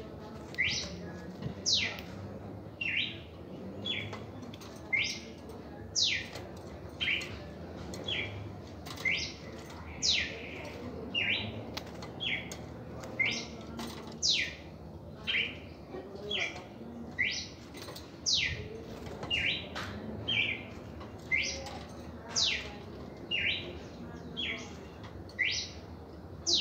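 Red-crested cardinal singing: a steady run of short, sharp whistled notes, each sliding down in pitch, about one to two a second, with the loudest note coming back about every four seconds.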